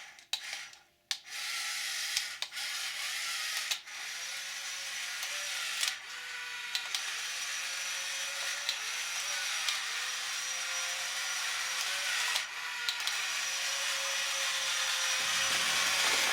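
Remote-control toy bulldozer driving: small electric motors and gears whirring with a wavering whine and occasional ticks. The whir starts about a second in, after a few sharp clicks.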